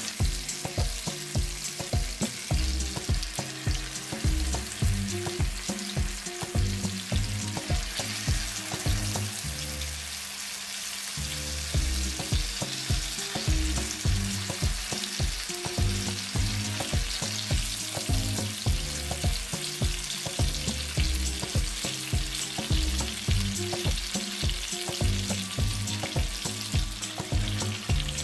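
Chicken drumsticks in a thick yogurt-and-cream marinade sizzling steadily in hot oil and butter on high flame as they brown. A low, steady beat runs underneath and drops out briefly about ten seconds in.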